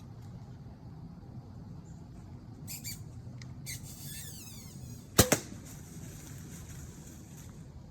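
A bow shot about five seconds in: a sharp crack with a second one close behind, the loudest thing in a quiet woods background. It is the arrow being loosed at a porcupine and hitting it.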